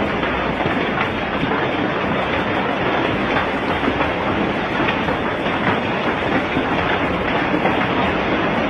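Heavy hail falling, a dense steady rattle of countless hailstones hitting the ground and nearby surfaces.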